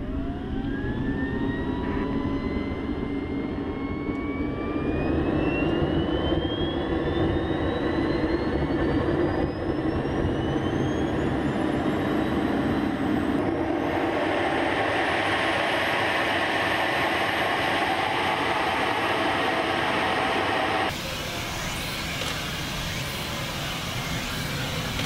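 Small turbojet engine of a Möwe-style jet glider starting: a whine rising steadily in pitch for about thirteen seconds as it spools up, then running at speed with a steady roar and a high whine.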